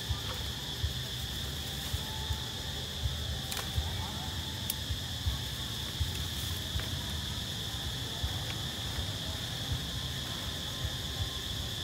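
Insects droning steadily at one high pitch in the forest, over a low rumble with frequent soft thumps from the handheld camera moving about.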